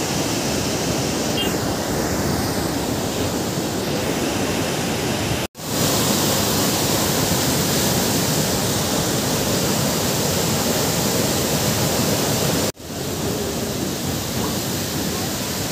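Mountain stream and small waterfall rushing over boulders: a steady, loud rush of water that cuts out briefly twice.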